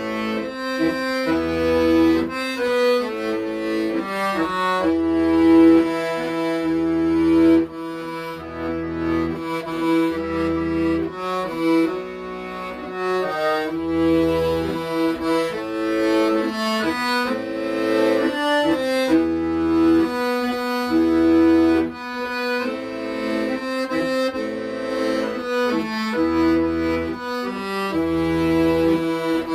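Accordion playing a slow, held melody over low bass notes that sound about every one and a half seconds.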